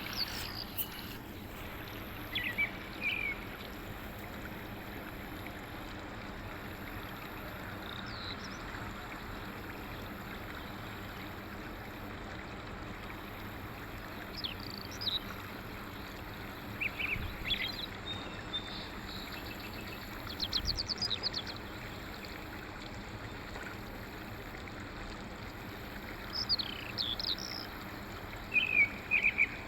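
Steady rush of flowing water, with short bird chirps and calls every few seconds and a brief rapid trill about two-thirds of the way through.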